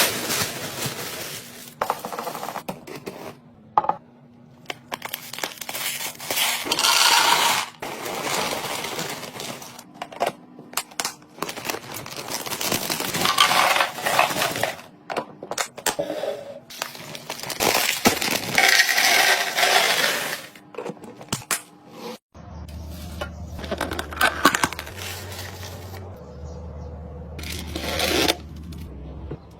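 Clicks and clinks of containers and packaging being handled and set down, with longer stretches of rustling. About two-thirds of the way through the sound changes abruptly and a low steady hum runs underneath.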